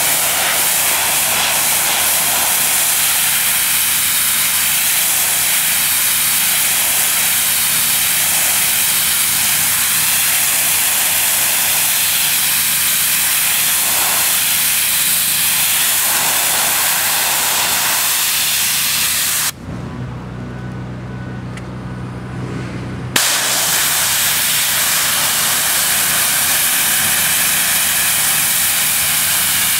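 Pressure washer jet hissing loudly as it blasts a concrete sidewalk, over the machine's steady low hum. About two-thirds of the way through, the spray cuts out for a few seconds with only the machine's hum left running, then the jet comes back on abruptly.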